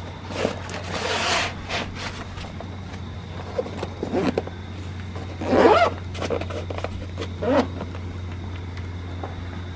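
Nylon pannier of a Topeak MTX Trunkbag DXP being packed with books and closed: fabric rustling and scraping, with a few short zipper-like rasps, the loudest a little past the middle. A steady low hum runs underneath.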